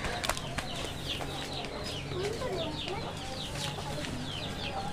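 Chickens: a rapid run of short, high peeps, several a second, with a lower call in the middle.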